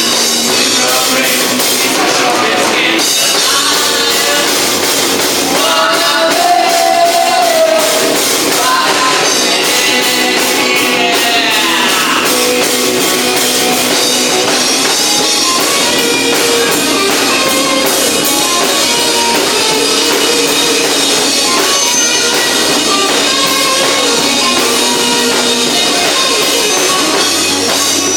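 Live punk rock band playing loudly, with a drum kit, electric guitars and a singing voice.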